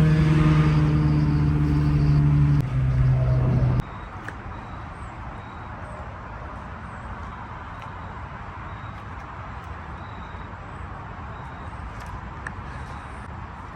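A car engine held at steady high revs, its pitch stepping down slightly about two and a half seconds in, then cutting off abruptly near four seconds. A much quieter, steady low rumble follows for the rest.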